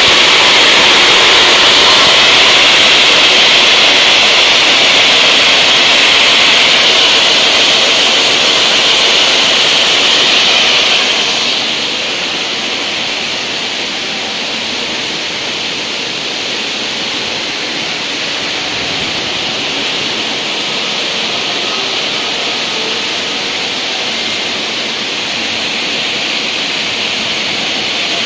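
Multi-blade bridge block cutting machine's circular saw blades cutting through a stone block: a steady, loud hiss, dropping somewhat in level about twelve seconds in.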